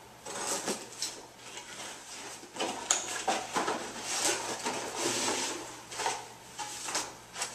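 Cardboard box of a wireless router being opened by hand: scraping, rustling and light knocks of cardboard and packaging, busiest in the middle as the flaps are opened and the inner tray is pulled out.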